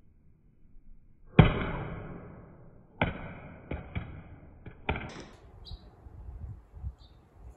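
iPhone SE 3 in a Frosted Phone Rebel case being dropped and hitting the ground: one sharp, loud impact about a second and a half in that rings out briefly, then several smaller hits over the next couple of seconds and a few faint clicks.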